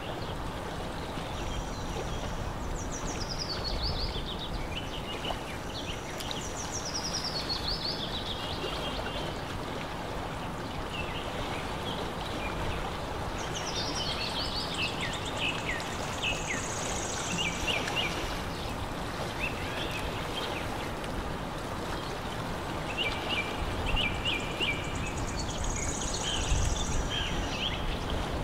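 A songbird singing short, high, descending trilled phrases, one every six to ten seconds, over a steady outdoor hiss.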